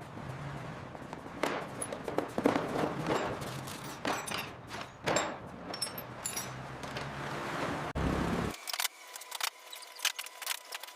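Metal tools clinking and scraping during scooter repair work: a string of sharp clicks and scrapes over a low hum. About eight and a half seconds in, the hum cuts off abruptly and lighter, sparser clicks go on.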